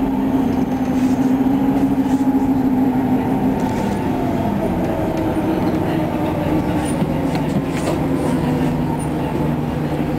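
A 2012 Nova Bus LFS city bus under way, heard from inside the cabin: its Cummins ISL9 diesel and ZF EcoLife automatic transmission make a steady hum with road noise. The pitch of the hum changes about four seconds in.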